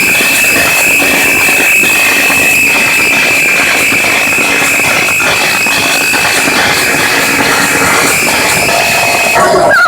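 Car trunk sound system ('paredão') blasting at full volume, so loud the recording is overloaded into a harsh, distorted wash. A steady high-pitched whistle sits on top and cuts off suddenly near the end.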